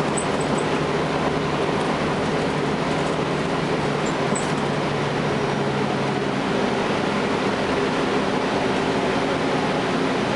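Cummins ISL9 diesel engine of a Gillig Low Floor transit bus running steadily under way, heard from inside the cabin together with road noise.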